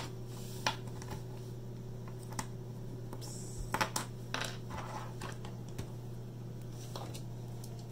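A few scattered light clicks and taps of small plastic Lego pieces being handled on a wooden table, over a steady low hum.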